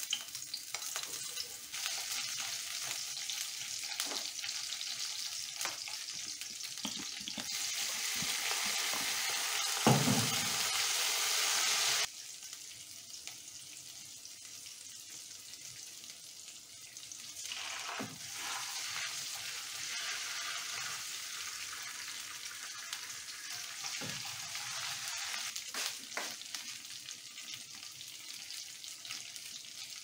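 Sliced onions sizzling and frying in hot oil in a frying pan, with the clicks and scrapes of a wooden spatula stirring. The sizzle swells louder, a sharp knock comes about ten seconds in, and about twelve seconds in it drops suddenly to a quieter fry before picking up again.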